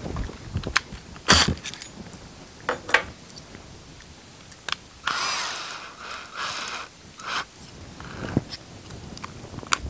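Sharp clicks and knocks as a drill bit, a cut-down plastic pencil tube and a cordless drill are handled, with a few seconds of rattling and scraping in the middle as the bit goes into the drill's chuck.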